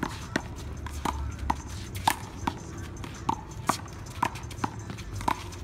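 Rubber handball smacking off hands, the wall and the pavement during a one-wall handball rally: sharp pops about two to three a second at uneven spacing, over a low outdoor rumble.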